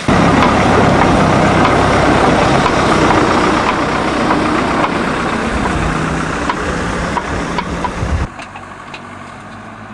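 Backhoe loader's engine running loud and close, a dense steady rumble. About eight seconds in it drops suddenly to a quieter level.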